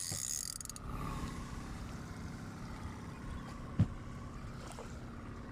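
Boat engine idling with a steady low rumble, and one sharp knock a little under four seconds in.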